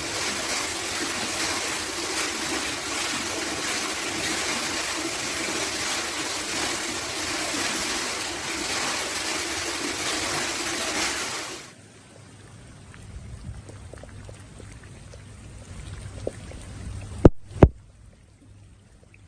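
Floodwater rushing steadily. About twelve seconds in it cuts off abruptly to a quieter low hum, with two sharp knocks close together near the end.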